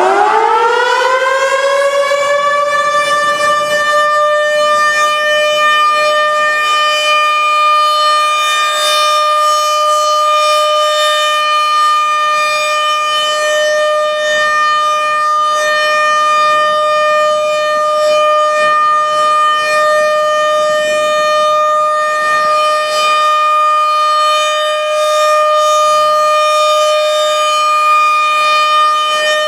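RM-130 outdoor warning siren winding up over the first couple of seconds, then holding one steady, loud tone for the scheduled siren test.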